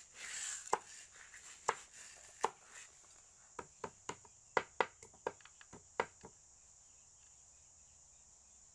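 Cleaver chopping sugar cane on a round wooden chopping block: sharp, irregular knocks, a few spaced strikes and then a quicker run of chops that stops about six seconds in. A steady high-pitched hum continues underneath.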